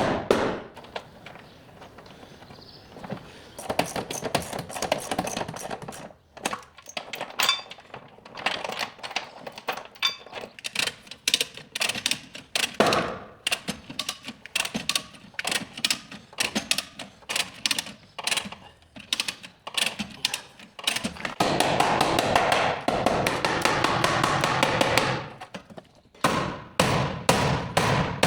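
Hammer blows on car body sheet metal, many quick strikes in runs, as in panel beating. About three quarters of the way through, a steady loud noise of another kind runs for a few seconds before the hammering resumes.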